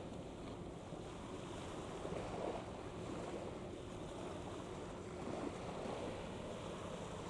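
Wind buffeting the microphone over a steady wash of sea water, with no distinct events.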